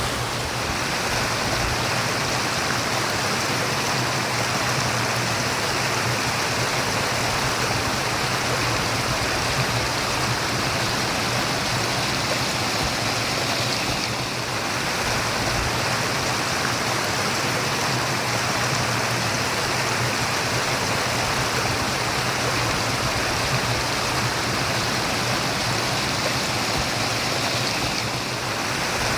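Running water, a stream flowing and burbling steadily.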